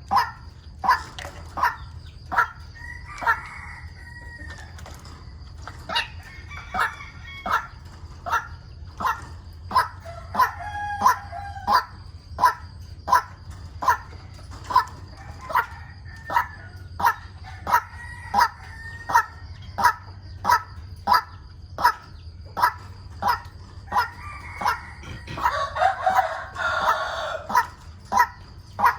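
White-breasted waterhen calling over and over, short sharp notes about one and a half a second in an unbroken rhythm. A rooster crows a few times, loudest near the end, over a steady faint high whine.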